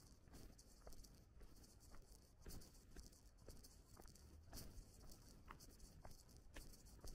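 Near silence with faint footsteps on a path at a steady walking pace, about two steps a second.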